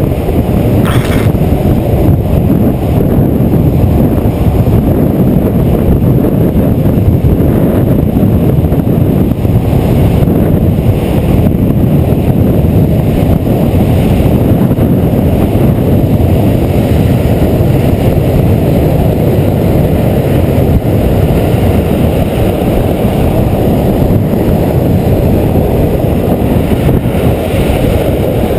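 Loud, steady wind rush on a camera microphone moving at downhill-skateboarding speed, mixed with the low rumble of skateboard wheels rolling over rough asphalt.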